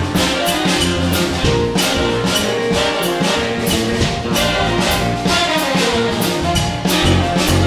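Large jazz band with a horn section of trumpets, trombones and saxophones playing a New Orleans funk groove over drum kit, electric bass and guitar. A long note is held for a couple of seconds about two seconds in, over a steady drum beat.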